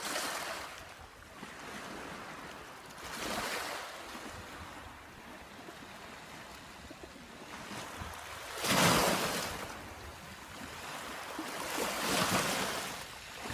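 Small waves of a calm Black Sea breaking and washing up a pebble beach, a swell of surf every few seconds, the loudest about nine seconds in.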